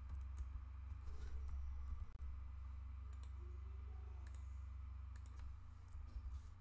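Scattered computer keyboard keystrokes and mouse clicks, irregularly spaced, over a steady low hum.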